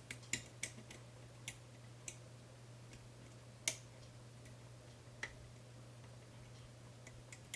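A few faint, irregular metallic clicks of a lock pick lifting and probing the pin stack of a Medeco cam lock, the loudest about three and a half seconds in.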